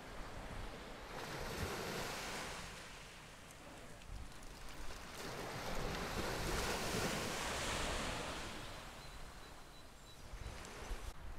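Sea waves washing on a shore: two slow swells of surf, the second longer, each rising and falling away.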